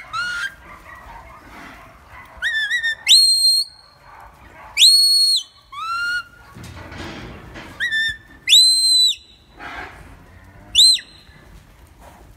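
A shepherd's whistle giving commands to a herding dog: a series of about seven shrill whistles, some short rising chirps and some held notes of about half a second.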